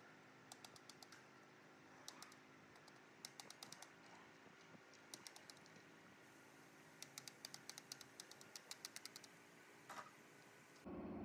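Quiet, quick hammer taps on a wooden drift, driving copper coil windings down into the slots of a large three-phase motor stator during rewinding. The taps come in runs of several a second, over a faint steady hum, and a louder steady hum starts abruptly near the end.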